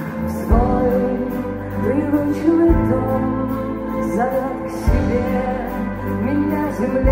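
Live band playing a slow, mostly instrumental passage of a song, with sustained melodic lines over a bass note that changes about every two seconds.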